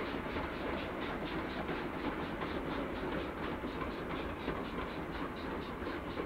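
Steam-hauled train running along the line, a steady rumble broken by a regular beat about four times a second.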